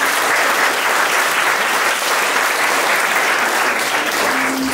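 Wedding guests applauding at the end of a speech: dense, steady clapping throughout, with a few faint voices mixed in.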